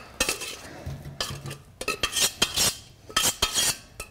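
A spoon scraping and clinking against a stainless steel pot as boiled potatoes are scooped out into a metal food mill, in a string of irregular clatters.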